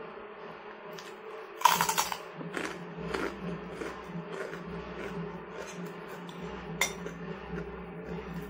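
Eating sounds: a crisp kerupuk cracker crunching in a burst of crackles about two seconds in, with smaller crunches after, and a sharp clink of a metal spoon on a glass plate later on. A steady low hum runs underneath.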